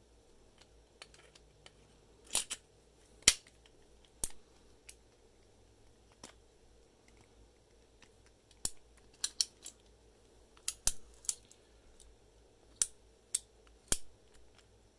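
Sharp metallic clicks and clacks in an irregular run, about fifteen in all, from a hand-filed brass key being worked into and turned in a US rotary registered mail padlock while the lock is handled.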